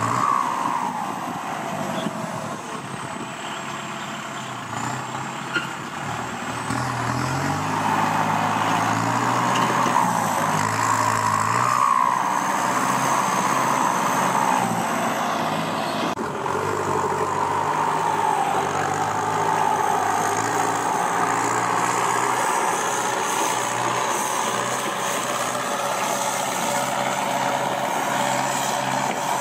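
Kubota M6240SUH tractor's turbo-diesel engine running through an aftermarket exhaust, its speed rising and falling several times. A turbo whistle rises and falls with it.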